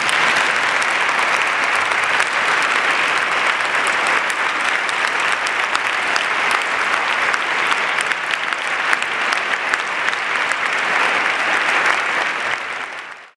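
Audience applauding: a dense, steady clatter of many hands clapping that dies away near the end.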